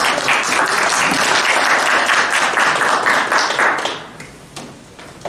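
Audience applauding. The applause dies away about four seconds in.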